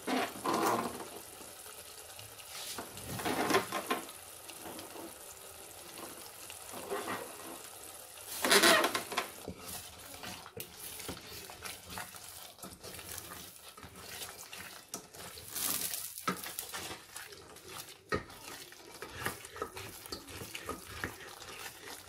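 Wooden spoon stirring and scraping through masala sizzling in a steel pot, with louder bursts a few times, the loudest about eight seconds in.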